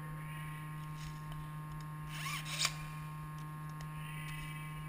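Steady electrical hum with a low, even pitch. About halfway through, a brief faint pitched sound is followed by a single sharp click.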